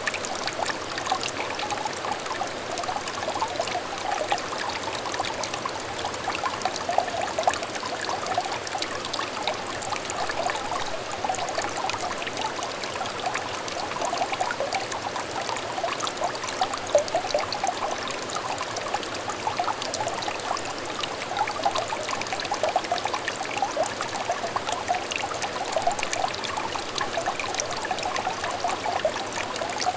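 Small clear stream trickling steadily, a continuous babble of many small water splashes and bubbles.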